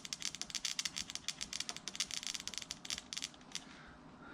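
Rapid, irregular clicking and crackling as a Subaru fuel injector is pulsed by hand, its lead tapped against a battery terminal to clean it. The clicking stops about three and a half seconds in.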